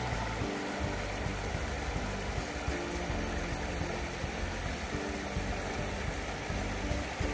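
River water rushing and splashing steadily over a small drop and through shallow riffles.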